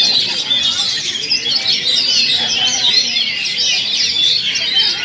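Many oriental magpie-robins singing at once, a dense overlapping chorus of quick chirps and whistles.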